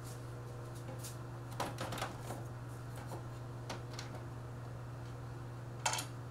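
Scattered plastic clicks and knocks of a flat-screen TV's back casing being handled and fitted back on, a few close together about two seconds in and the loudest near the end, over a steady low hum.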